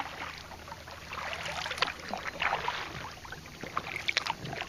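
Kayak paddle dipping and splashing, with water swishing against the hull in uneven strokes.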